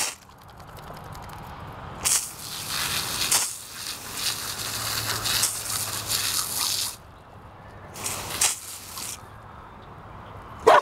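Garden hose spray hissing and splashing against a dog as it snaps at the jet. The hiss comes and goes in surges, dropping away for a moment before the end.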